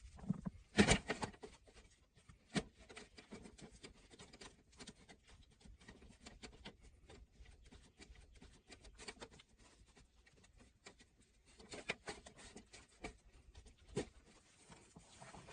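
Close, irregular hand-work sounds in a small room: small scrapes, rubs and taps, with a few sharper knocks, the loudest about a second in.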